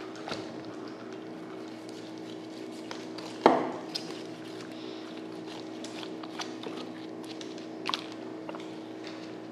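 Large knife cutting shark meat on a wooden chopping board: one loud knock of the blade on the board about three and a half seconds in, with lighter knife taps and clicks, over a steady electrical hum.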